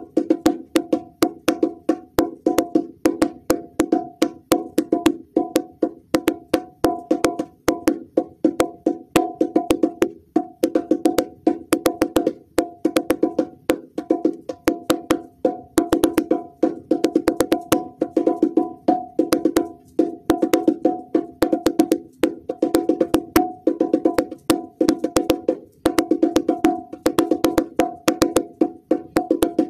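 Bongo drums played by hand in a fast, continuous rhythm of sharp, pitched strikes.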